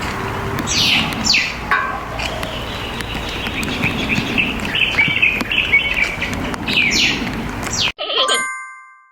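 Birds calling several times in quick downward-sweeping notes, with a stretch of wavering high calls, over a steady background hiss. Near the end the sound cuts off abruptly, a brief ringing tone follows, and then it fades out.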